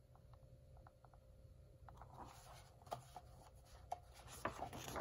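Near silence, then faint paper rustling and soft taps from about two seconds in as the pages of a hardcover picture book are handled and turned.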